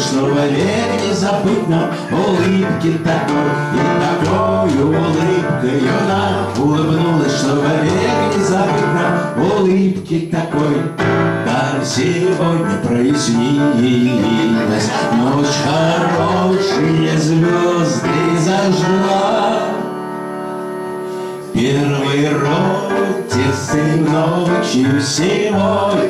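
A man singing a song live, accompanied on a Yamaha electronic keyboard. About two-thirds of the way through, the music drops briefly to a quieter held chord before the song picks up again.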